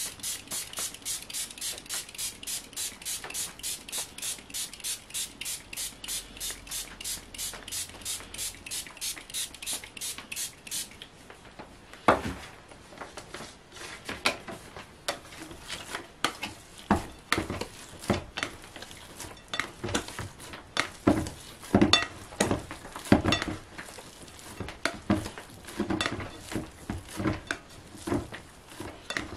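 Trigger spray bottle misting water over bread dough in a rapid, evenly spaced run of squirts for about eleven seconds. Then comes a sharp knock, followed by irregular taps and scrapes as a plastic bowl scraper works the dough against a glass bowl.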